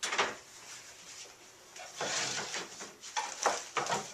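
Wooden cabinet panels being handled during flat-pack assembly: a clatter at the start, a rustling scrape about two seconds in, then several sharp wooden knocks near the end as parts are set in place.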